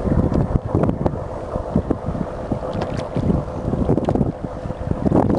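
Wind buffeting the microphone in irregular gusts, with water splashing and lapping around a paddled sea kayak. A faint steady hum runs underneath.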